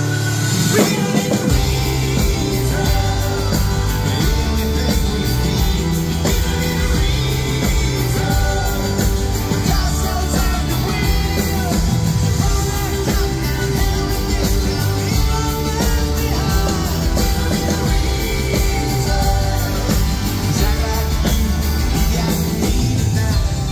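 Live pop-rock band (drums, bass, electric guitars and keyboards) playing loudly, with singing and shouts over the music. The full band with drums comes in about a second in.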